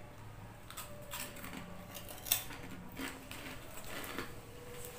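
Close-up chewing of crunchy pork cracklings (chicharon): a run of irregular crisp crunches and crackles, the sharpest about two and a half seconds in.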